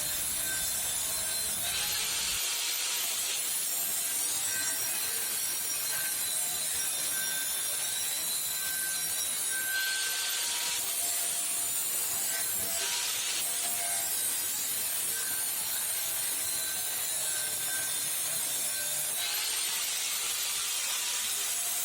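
Electric rotary tool grinding into the steel axe head to engrave ornament details: a steady rasping with a faint thin whine, growing louder and hissier in a few short stretches, a couple of seconds in, around ten and thirteen seconds in, and near the end.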